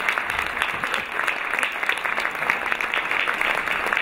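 Lecture audience applauding: many hands clapping in a steady, dense patter.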